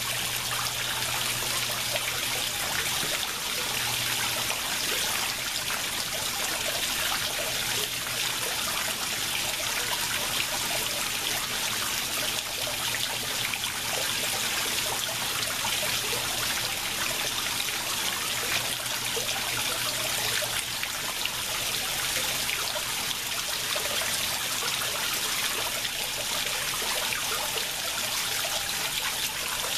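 Steady splashing of water falling into a koi pond, churning its surface.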